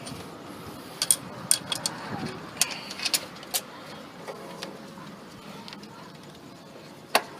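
Sharp metallic clicks and clinks of a bolt and hand tools while the alternator's top mounting bolt is being fitted: a cluster of clicks between about one and four seconds in, and one louder click near the end.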